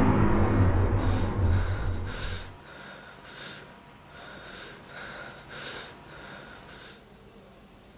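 A deep low rumble fades out over the first two and a half seconds, then heavy breathing follows: quick, breathy pants, about two a second, stopping about a second before the end.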